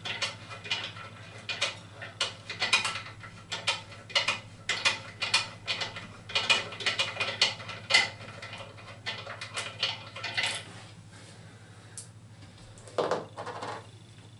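Irregular metallic clicking and scraping of a butterfly bolt being unscrewed by hand under a toilet cistern, where the cistern is fixed to the pan. It stops about ten seconds in, with a few last clicks near the end, over a low steady hum.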